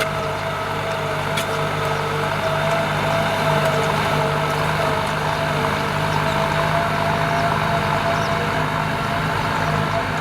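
Kubota M9540 tractor's diesel engine running steadily under the load of ploughing, with a constant whine above the engine note.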